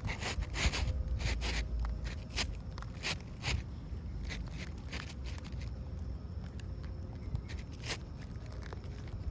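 Asphalt shingle scraping and rustling as it is slid up underneath the shingles above: a quick run of scrapes and clicks over the first few seconds, then one more near the end.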